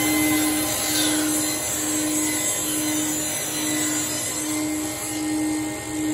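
Table saw running steadily while a board is fed through a zero-clearance 45-degree ripping jig, the blade cutting a bevel rip along its length.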